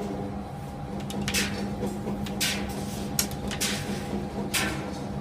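SANYO coin-laundry gas tumble dryer running: its motor gives a steady hum with a constant pitch, the abnormal motor noise that some of these dryers develop. Short swishing noises come at irregular spacing, about one a second.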